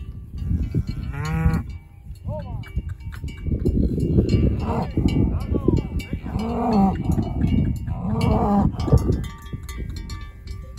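Charolais cattle mooing repeatedly: a higher-pitched call about a second in, then several longer, lower moos in the second half, over a steady low rumble.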